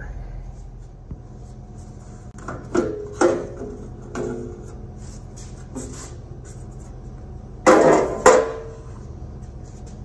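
Metal clanking and clattering as a mower's sheet-metal fender and its bolts are taken off: a handful of separate knocks with a short ringing, the loudest pair about three quarters of the way through.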